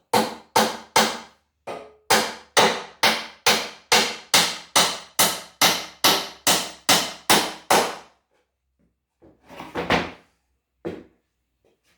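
Claw hammer driving a nail into a wooden frame board: about twenty sharp blows in quick, even succession, with a brief pause after the first four, stopping about eight seconds in, followed by a few softer knocks.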